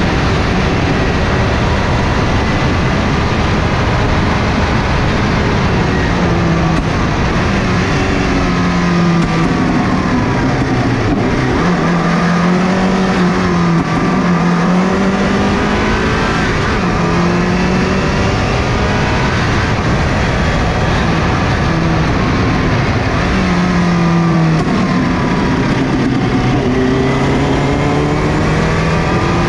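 Turbocharged Subaru GC8 Impreza rally car's flat-four engine under hard driving, its pitch climbing and dropping back over and over with throttle and gear changes, over steady road and wind noise.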